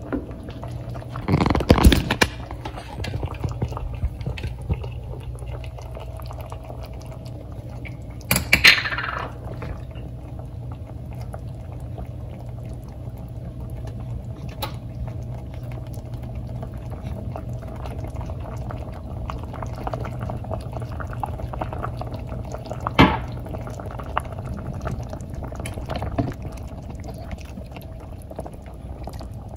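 Pot of chicken noodle soup simmering and bubbling while a black spoon stirs through it, knocking against the pot a few times. A steady low hum runs underneath.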